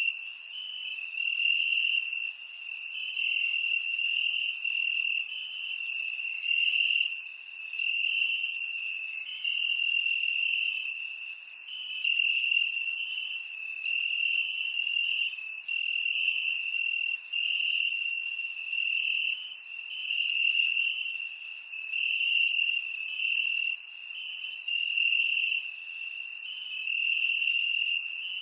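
Crickets chirping in a continuous high-pitched trill that swells and fades every second or two.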